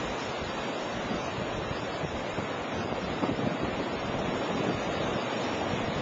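Wind blowing through bare, leafless winter trees, a steady rushing noise.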